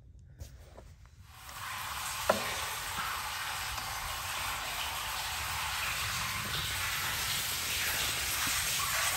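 Water from a garden hose pouring into a septic tank's pump chamber and splashing onto the water at the bottom, filling it so the pump sits in water. The steady splashing rush starts about a second and a half in, with a single sharp knock a little after two seconds.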